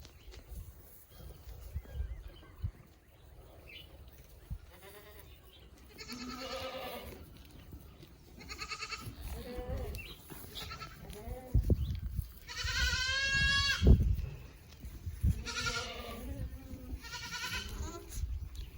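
Boer goats bleating: about six separate wavering bleats from several animals, the loudest and longest about two-thirds of the way through.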